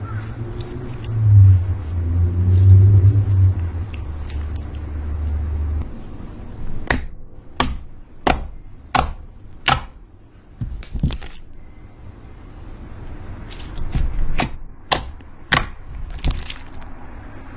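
Hands stretching, poking and kneading glossy slime. A low rumble of handling runs for the first six seconds, then about a dozen sharp pops and clicks come as fingers press into the slime and burst air pockets.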